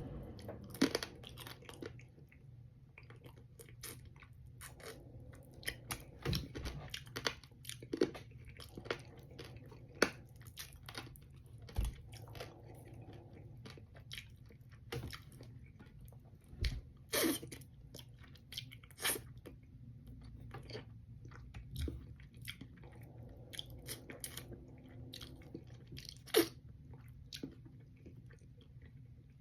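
A person chewing and crunching fried fish, with many short, sharp crunches and mouth clicks scattered irregularly throughout.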